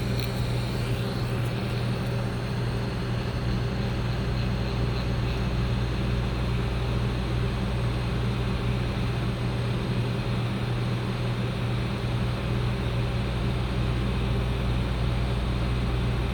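Hot-air heat gun blowing steadily with a low motor hum, turned up hotter to soften old flux on a circuit board.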